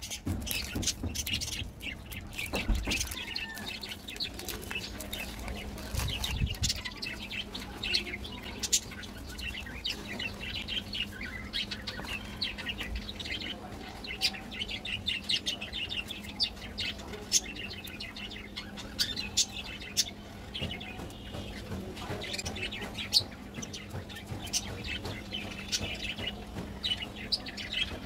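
Many short crinkles and rustles of a KitKat bar's plastic wrapper and thin inner foil being opened and handled, as the chocolate-coated wafer fingers are broken apart by hand.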